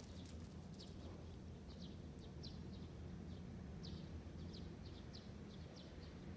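A small bird chirping, about a dozen short high notes at uneven spacing, faint over a steady low rumble.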